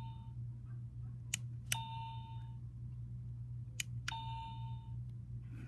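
Button presses on a rechargeable dinosaur alarm clock: twice, a pair of light clicks is followed by a short electronic ding from the clock, about two seconds apart. A steady low hum runs underneath.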